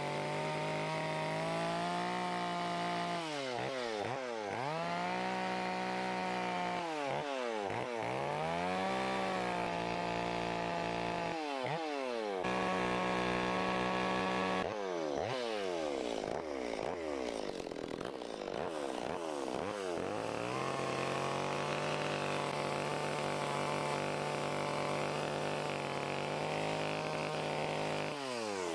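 Carving chainsaw revving as it cuts into wood. It holds at high revs for a few seconds at a time, then drops off and revs back up, again and again, with a longer steady run near the end.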